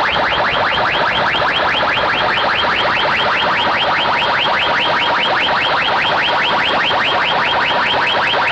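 Large DJ speaker stacks blasting an electronic chirp effect: quick sweeping tones repeating about five times a second over a steady tone beneath.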